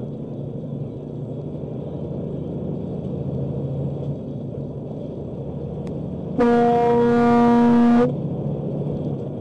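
Semi truck cab noise, steady engine and road rumble, with one long horn blast of about a second and a half, starting about six and a half seconds in, sounded at a car that has cut in close ahead.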